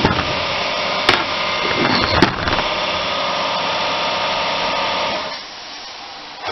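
A motor running steadily, then cutting off about five seconds in, leaving a quieter hum; a few sharp knocks come in the first two and a half seconds.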